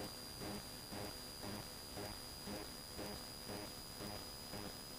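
Faint in-flight cabin noise of a Cessna 172's engine and propeller: a low throb that pulses evenly about twice a second, with a steady high-pitched whine over it.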